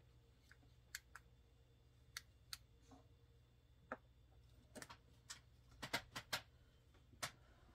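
Sparse light clicks and taps, about a dozen spread irregularly with a small cluster a little past the middle, from hands handling small objects on a tabletop, over a faint low hum in a quiet room.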